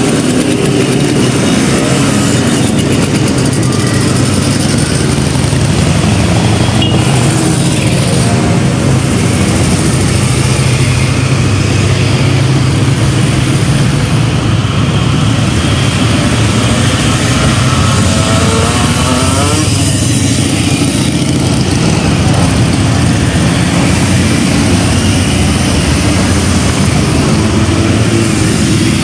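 Many motorcycle engines running at once as a column of bikes rides slowly past in a steady stream. Single engines can be heard rising and falling in pitch as they pass, most clearly about two-thirds of the way in.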